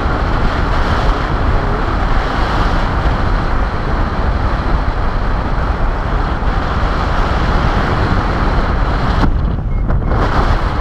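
Airflow rushing over the microphone of a camera on a paraglider in flight: loud, steady wind noise. Its hiss drops away for about a second near the end.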